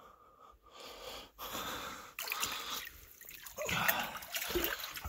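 A person breathing hard and wheezing while moving through shallow water in a confined tunnel, with splashing and sloshing. The breathing and water noise start about a second and a half in and are loudest about four seconds in.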